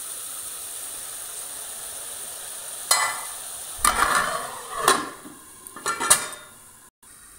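Spiced tomato-onion masala with a little water sizzling in an aluminium kadhai, then about four sharp metal clanks with ringing from a steel spoon and steel lid against the pan as it is covered. The sizzle is quieter under the lid.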